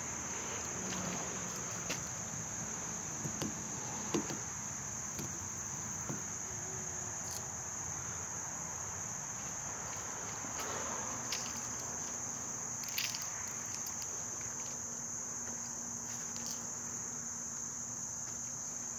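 A steady, high-pitched chorus of insects that drones on without a break, with a few faint clicks and taps now and then.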